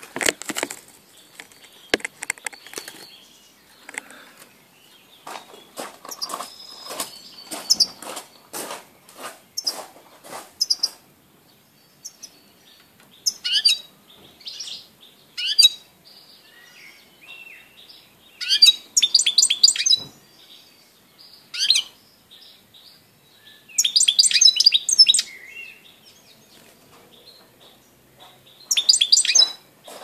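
Caged European goldfinch: wing flutters and short chirps in the first ten seconds or so, then several bursts of fast, high, tinkling twittering song with pauses between them.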